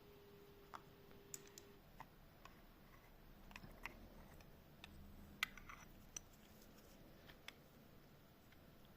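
Near silence with faint, irregular small clicks, the loudest about five and a half seconds in: the metal pair case of an antique verge fusee pocket watch being handled and worked open.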